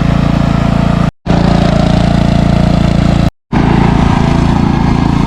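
Ride-on lawn mower's small engine running steadily, loud and close. The sound cuts out abruptly twice, about a second in and again about three and a half seconds in.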